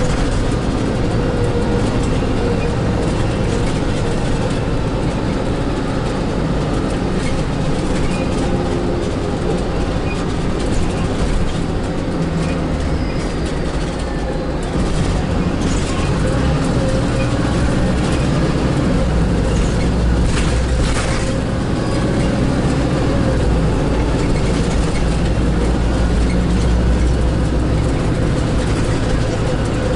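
Inside a 2007 Volvo 8500LE bus on a Volvo B7RLE chassis with a Voith automatic gearbox, riding: the rear-mounted inline-six diesel and drivetrain hum steadily over road noise, with a steady tone throughout. The low engine rumble eases briefly around the middle, then grows stronger through the second half as the bus pulls harder. A few short knocks and rattles from the fittings come through.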